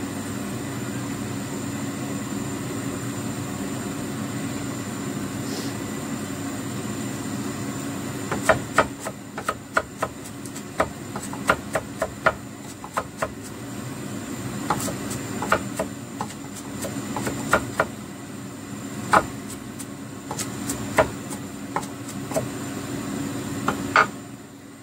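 Cleaver mincing shallots and garlic on a wooden chopping board: irregular sharp knocks, one or two a second, starting about a third of the way in, over a steady low hum.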